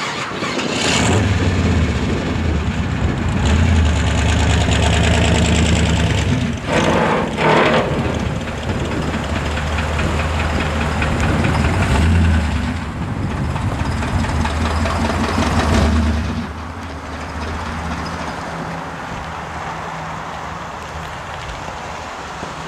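Engine of a lowered square-body pickup truck running while the truck moves, its revs rising and falling with a couple of sharper surges. About two-thirds of the way through it drops to a steadier, quieter running sound.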